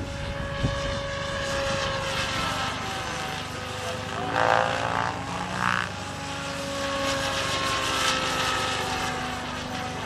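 Electric HD-750 RC model helicopter flying aerobatics, its motor and rotor whine gliding slowly up and down in pitch. Two short louder bursts of sound come near the middle.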